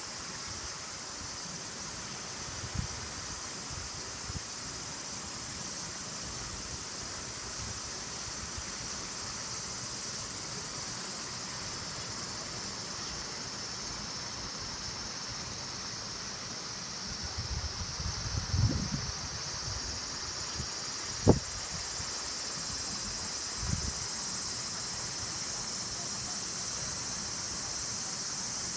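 A steady hiss of a shallow river running over a small weir, mixed with a high, even insect chorus. A few low bumps come about two-thirds of the way through, with one sharp click among them.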